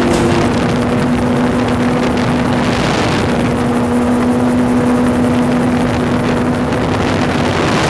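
Yamaha snowmobile engine converted for a gyroplane, running at steady power: a steady drone under a heavy rush of air noise.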